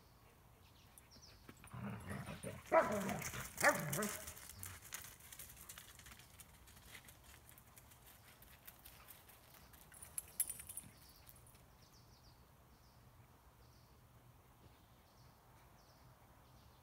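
Dogs in rough play: a short burst of barking and growling about two seconds in, with two loud barks close together.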